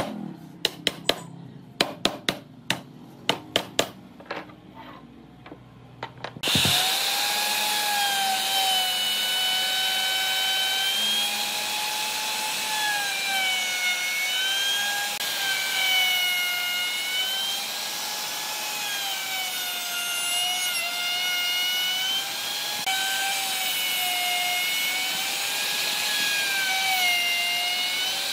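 A hammer taps the wooden frame a dozen or so times. About six seconds in, a Dong Cheng plunge router starts and runs, its high whine wavering slightly in pitch as the bit cuts a groove in the pine.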